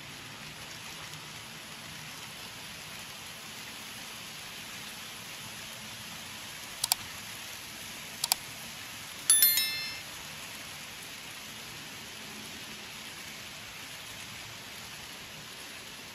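Subscribe-button sound effect: two sharp mouse clicks about a second and a half apart, then a short bell chime that rings briefly and fades. A steady hiss runs underneath.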